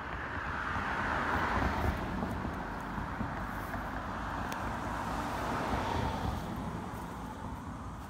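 Passing road traffic: tyre and engine noise from cars swelling to a peak about two seconds in, rising again near six seconds, then fading away.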